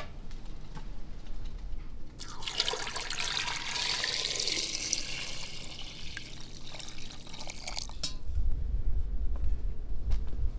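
Water poured from a metal jug onto potatoes in a ceramic pot, a steady splashing pour that starts about two seconds in and lasts about five seconds. A low rumble follows near the end.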